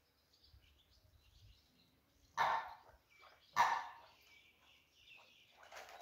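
Two loud, short animal calls about a second apart, each starting sharply and fading quickly, over faint chirping of small birds.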